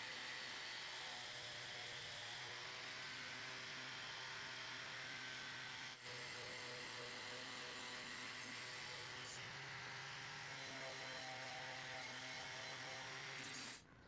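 Angle grinder running steadily with a wire brush scouring rust off the inside of a thin steel fan part; it cuts off near the end.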